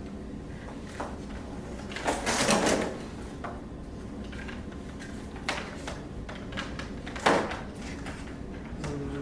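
Parts of a new vacuum cleaner being handled while it is unpacked: a scraping rustle for about a second, about two seconds in, a few small clicks, and one sharp knock near the end.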